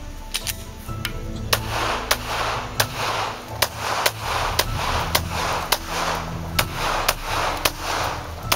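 Glock 17 9 mm pistol fired in a steady string of shots, about half a second to a second apart, over background music with a steady beat.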